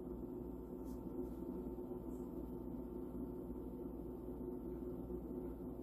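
Steady low hum of room tone, with no distinct events.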